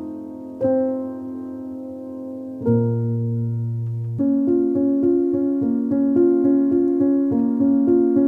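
Background piano music: a few held chords, then from about four seconds in a steady run of quicker repeated notes.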